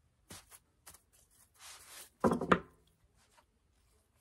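Plastic tablecloth strips rustling and crinkling under the hands as a twisted pipe-cleaner end is bent down into the wreath, with a few light clicks. A brief, louder pitched squeak comes a little over two seconds in.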